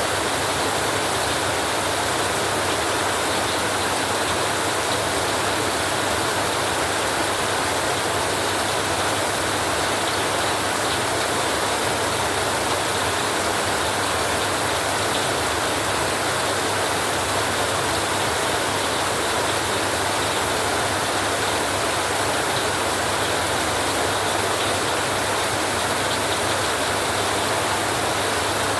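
Heavy rain falling on a metal roof: a steady, even hiss that stays the same throughout.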